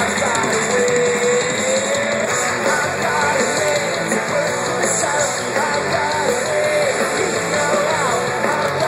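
Pop-punk band playing live at full volume: electric guitars and drums with a sung melody over them.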